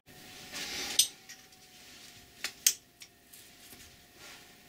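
Light metal clicks and a short scrape as a lathe bed wiper's metal retaining plate is held against the saddle and a screw is fitted with a thin driver. A scrape ends in a sharp click about a second in, followed by two more clicks about two and a half seconds in.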